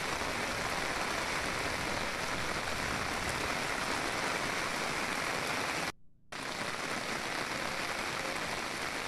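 Steady hiss of heavy rain falling on flooded ground, broken by a brief drop-out about six seconds in.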